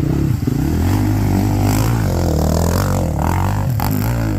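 Motocross bike engine running close by, its pitch rising and falling as the throttle is worked on and off.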